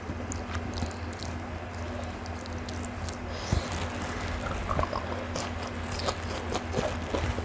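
A person eating by hand at close range: fingers working through raw leafy greens on a plate, then biting and chewing a mouthful of spiced fish with fresh greens. Sharp clicking mouth sounds come thick from about three and a half seconds in, over a steady low hum.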